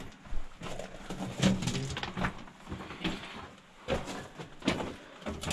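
Footsteps on loose rock and gravel, at a walking pace of roughly one step a second.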